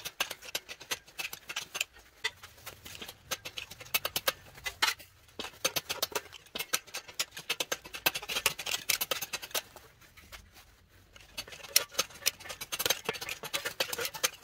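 Sheet-metal shrinker/stretcher machine working the edge of a steel rocker panel piece: a dense run of sharp metallic clicks and clacks as the jaws bite and crimp the metal, with two short pauses. The shrinking gathers the edge so the bent panel dishes in to fit the curve.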